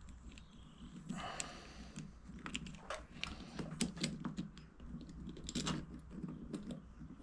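Light clicks and scrapes of small metal parts being handled as a circlip is worked into place with circlip pliers, with a short scraping rustle about a second in.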